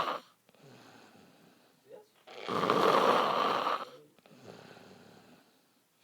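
A drunk man snoring loudly. One snore ends just after the start, and another long snore comes at about two and a half seconds, with much quieter sound between them.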